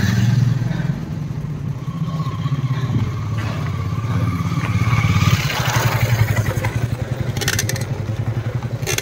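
Mountain bike being ridden, with a steady low rumble and clatter from the ride, and a faint held tone for a few seconds in the middle.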